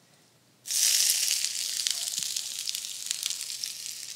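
Sliced red onion and red bell pepper dropped into a hot sauté pan: a sudden loud sizzle less than a second in, easing to a steady sizzle with small pops.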